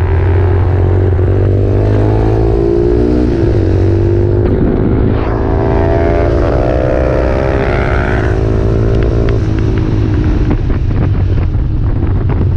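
Onboard sound of a motorcycle on track: the engine climbs in pitch under acceleration, with a break at a gear change about five seconds in, then the throttle closes about nine seconds in and a run of short clicks follows as it slows for a bend. Heavy wind rumble on the microphone throughout.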